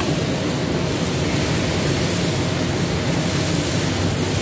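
High-pressure water pump and its electric motor running steadily after being switched on, giving a loud, even rushing noise with a low hum underneath.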